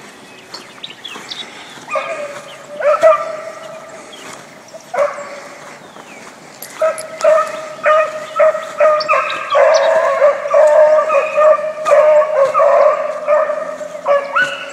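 Beagles baying as they run a rabbit's track. A few calls about two seconds in, then the bawls come faster and overlap into a steady chorus from about ten seconds on.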